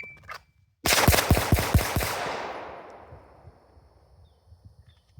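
A rapid string of about six pistol shots fired within about a second, right after a shot timer's start beep, the reports echoing and dying away over the next second.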